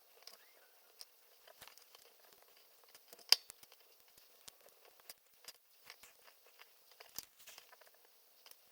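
Scattered small plastic clicks and light rustling of LEGO bricks being handled and pressed together, with one sharper click about three seconds in.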